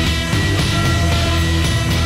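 Background rock music with a steady beat and distorted guitar.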